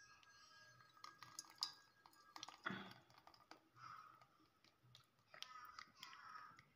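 Faint clinks and taps of a blender jar against a stainless steel mesh strainer, with short soft spells of thick blended tangerine juice pouring and sloshing into the strainer.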